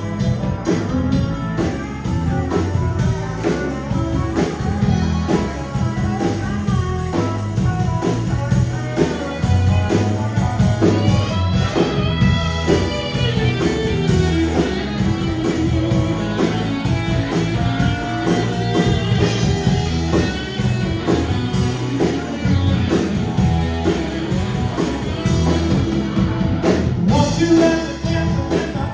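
Live rock band playing, with electric guitar, keyboards and drums, and singing over a steady beat.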